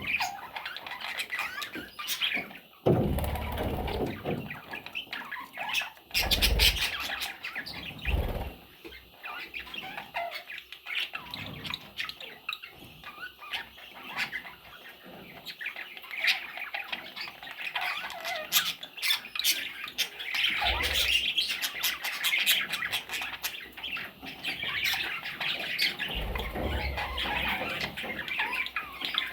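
Pet budgerigars chattering and chirping continuously with short squawks, with several loud bursts of wing flapping.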